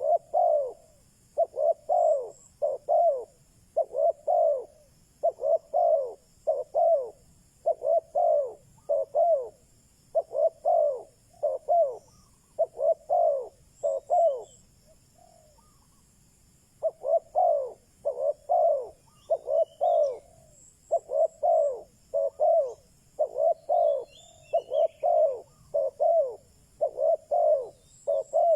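Spotted dove cooing in a steady series of short phrases of two or three coos, with a pause of about two seconds in the middle. This is the call used as a decoy to stir wild male doves into answering. A few faint high chirps come in during the second half.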